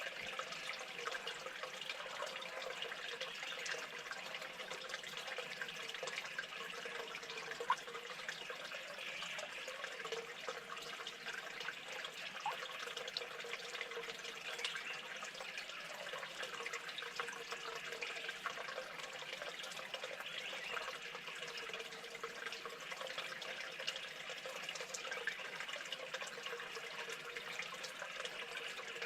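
Steady running water with small drips and ticks throughout.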